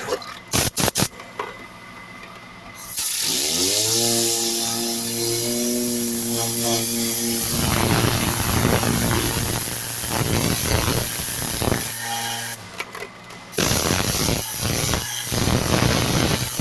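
Tornador Z020 compressed-air cleaning gun: a few short blasts, then a loud steady air hiss from about three seconds in, with a hum that rises in pitch and then holds as the gun spins up. The air cuts off for about a second near the end, then starts again.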